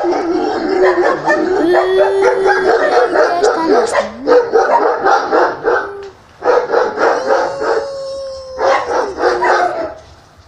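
Dogs barking, yipping and howling together in a dense, overlapping chorus, with drawn-out whining howls among the barks and a short pause about six seconds in.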